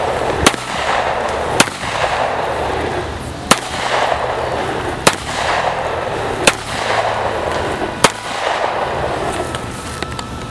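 Six pistol shots from an STI Comet .38 Super, fired one at a time about one to two seconds apart while the shooter walks toward targets on the ground.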